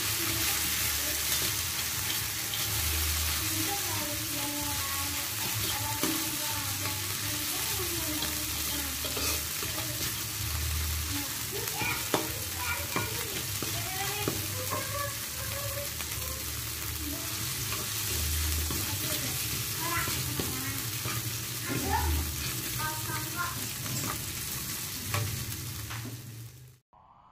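Chopped chili and aromatic spice paste sizzling in hot oil in a wok, stirred and scraped with a metal ladle. The sizzling cuts off abruptly about a second before the end.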